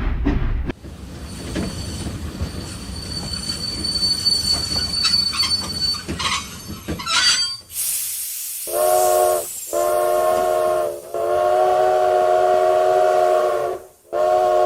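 A toy train's sound recreated from real train sound effects. A chugging rhythm stops just under a second in, giving way to a steady rolling rumble with a thin high squeal. About eight seconds in comes a burst of hiss, then four horn blasts, the third one long.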